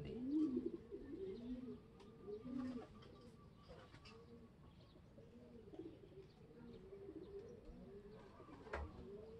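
Racing pigeons cooing softly, a steady run of low, repeated coos, with one sharp click near the end.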